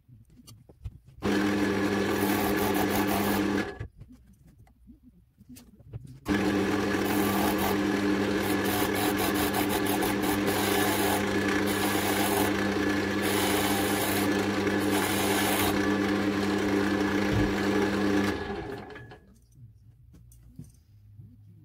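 Wood lathe running with a steady motor hum while a turning tool cuts the end of an oak handle blank, the cutting hiss coming and going in bursts. It runs briefly about a second in, then for about twelve seconds, and fades out near the end.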